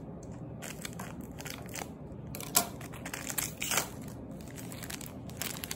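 Foil booster-pack wrapper crinkling and crackling as it is cut with scissors and pulled open by hand, with two louder crackles about midway.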